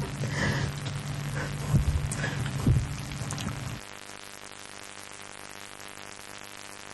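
Background hiss and electrical hum of an old TV broadcast recording: a low hum with a few faint clicks drops away about four seconds in, leaving a quieter steady hiss with a faint buzz.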